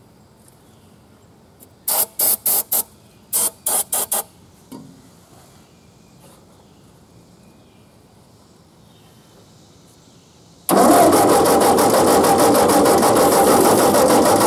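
Two quick series of short hisses from an aerosol can of starting fluid sprayed into the carburetor. About ten seconds in, the Ford 8N's four-cylinder engine starts cranking on its starter, turning over fast and steadily on jump-box power as it tries to fire on the starting fluid.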